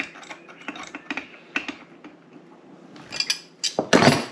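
Metal hand tools and brass tap fittings clicking and clattering as pliers work on a kitchen mixer tap being taken apart, with a run of short sharp clicks and a louder clatter near the end.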